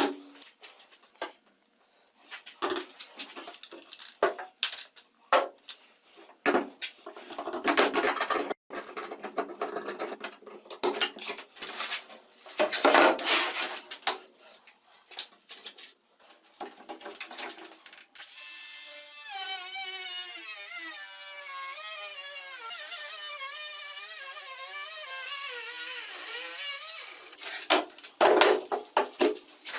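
Metal parts and tools knocking and clinking as they are handled, then a small power tool runs steadily for about nine seconds, its pitch wavering slightly, before the knocking resumes.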